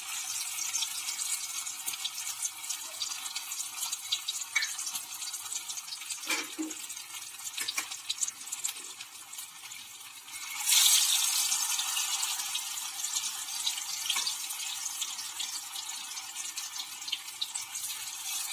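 Chuda (poha) tikkis shallow-frying in hot oil in a steel kadai, a steady crackling sizzle. About ten seconds in the sizzle grows louder as another patty is lowered into the oil on a spatula, and there are a few light clicks of the spatula against the pan.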